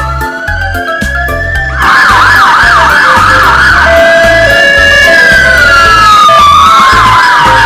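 Electronic siren over background music with a steady beat. It wails in slow rising and falling sweeps, switches to rapid yelps about two seconds in, and yelps again near the end.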